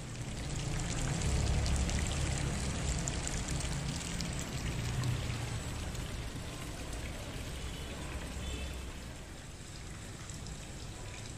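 Steady hiss and patter of falling water, with a low rumble underneath that is strongest in the first few seconds and fades out near the end.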